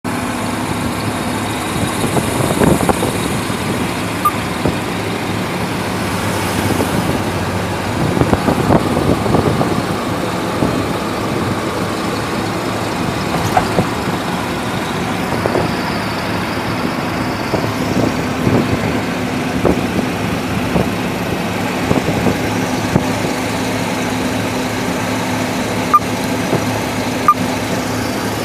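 Road noise heard from inside a moving vehicle's cab: a steady engine and tyre hum, with short knocks and rattles every few seconds.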